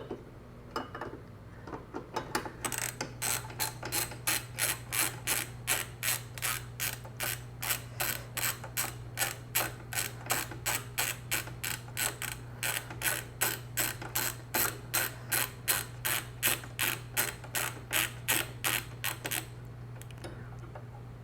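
Hand ratchet clicking in an even run, about three clicks a second for some seventeen seconds, as a long screw is backed out of the disco light's housing.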